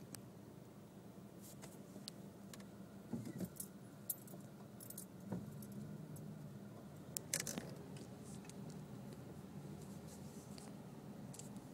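Car cabin while driving: a low steady hum, with scattered small clicks and light jangling rattles, the loudest about three seconds and about seven and a half seconds in.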